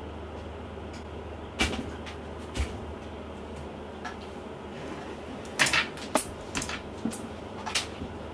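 A scattered series of short knocks and clicks, with one about a second and a half in, another a second later, and a cluster in the last third, over a steady low hum.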